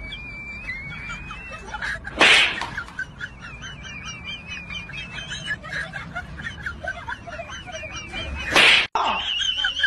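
Birds chirping and warbling continuously. Two loud, sharp rushing bursts of noise, each under half a second, come about two seconds in and again near the end.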